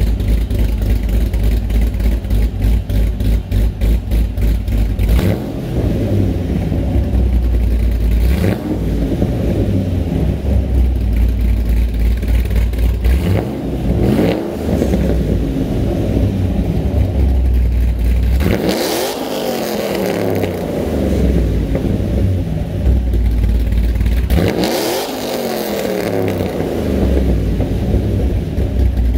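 C6 Corvette's LS3 6.2-litre V8 with a TSP Stage 2 cam and full Hooker exhaust, idling with a lumpy, pulsing idle and revved about six times, each rev climbing and dropping back to idle. The last two revs, near the middle and about three quarters of the way in, go highest.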